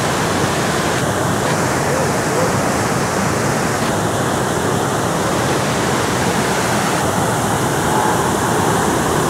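Steady rush of water pouring over the rock ledges of a small river waterfall and its cascades.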